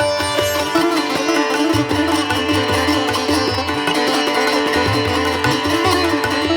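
Instrumental background music: a plucked string melody with bending notes over a steady drone, with a low repeating pulse beneath.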